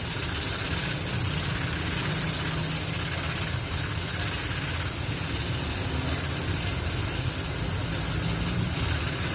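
Steady low engine rumble running without change, with a constant hiss over it.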